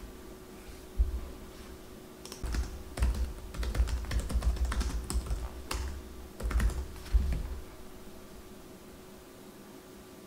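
Typing on a laptop keyboard: a quick, irregular run of key clicks through the middle few seconds, with a few dull thumps among them.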